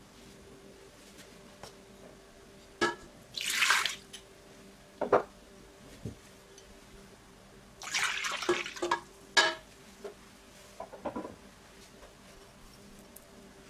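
Kitchen tap run in two short spurts into an empty stainless steel pot, water splashing on the metal bottom, with a few sharp clicks and knocks between.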